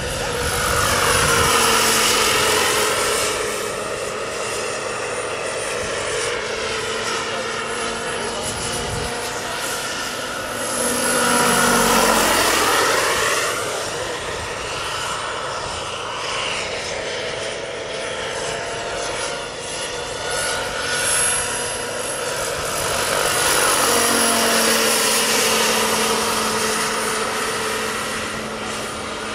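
Turbine engine and rotor of a giant radio-controlled scale SA-319 Alouette III model helicopter in flight: a high turbine whine over rotor noise. The sound swells and drops in pitch three times as it passes close.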